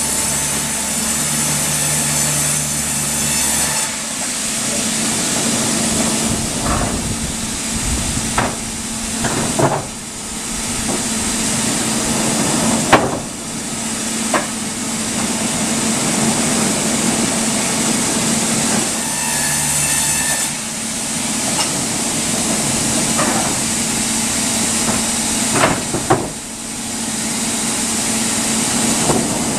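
Sawmill machinery running with a steady hiss and hum. An engine drone comes in at the start and again about two-thirds through, and there are several sharp knocks of timber, the loudest near the middle.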